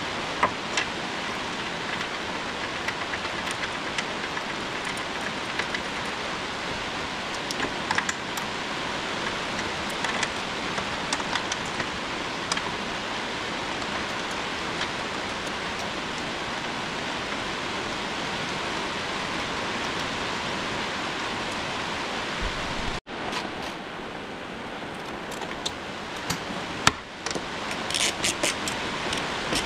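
Steady hiss of background noise with scattered clinks of metal parts and tools as an engine mount and its bolts are fitted into the engine bay, then a quick run of ratchet clicks near the end as the mount bolts are tightened.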